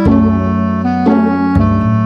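Background music: slow, sustained instrumental chords, with a change of chord about one and a half seconds in.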